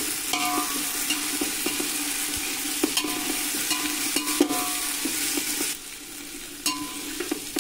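Sliced onions and ginger-garlic paste sizzling in mustard oil in a pan while a spatula stirs them, scraping and knocking against the pan now and then. The paste is being fried until the oil separates. The sizzling drops for about a second near the end.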